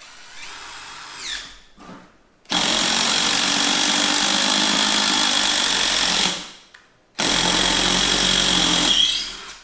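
DeWalt multi-speed cordless impact driver: a short, quieter spin whose pitch glides about a second in, then two loud, steady impacting runs, the first about four seconds long and the second about two.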